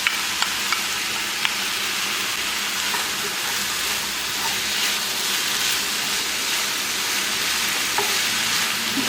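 Chopped onion and peppers frying in oil in a pan, a steady sizzle with a few sharp crackles in the first second or so.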